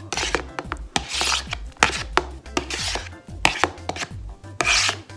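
A metal fork scraping shredded chicken off a plastic plate into a slow cooker, in a quick series of irregular scraping strokes and sharp taps of metal on plastic.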